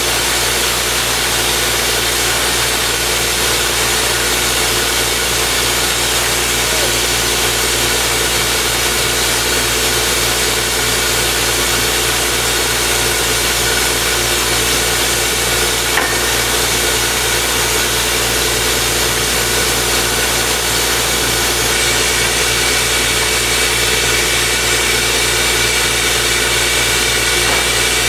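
Truck-mounted borewell drilling rig running steadily, a loud even machine noise with a few steady tones. A faint high whine joins in over the last several seconds.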